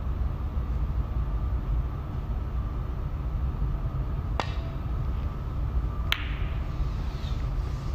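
Snooker shot: the cue tip strikes the cue ball with a light click about four seconds in, and a sharper ball-on-ball click follows a little under two seconds later. A steady low hum runs underneath.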